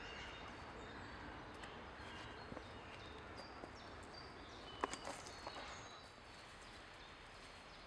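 Faint outdoor woodland ambience: a steady low hiss with scattered short, high bird chirps, and a few soft clicks or rustles about five seconds in.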